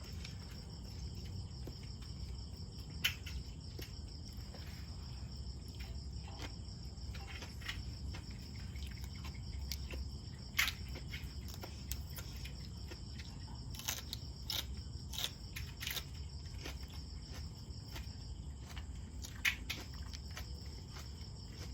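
Someone chewing and biting crunchy food, with scattered sharp crunches and clicks, over a steady high chirring of crickets in the background.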